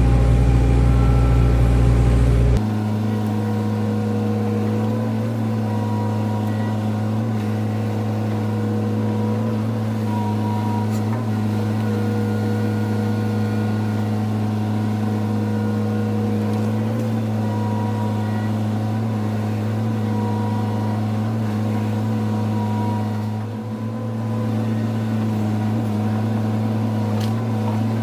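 Hydraulic excavator's diesel engine running steadily under work. Its low rumble changes abruptly about two and a half seconds in, and the level dips briefly near the end.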